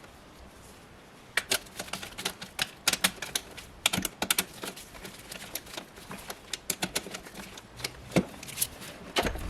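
Irregular sharp clicks and taps of metal hand tools working on bolts. They start about a second and a half in and come in quick uneven clusters.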